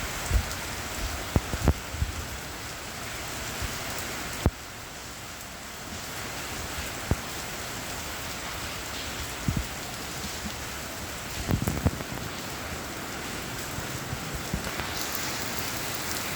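Steady rain falling, with heavy drops landing as scattered sharp taps and thuds. It is briefly softer about four and a half seconds in.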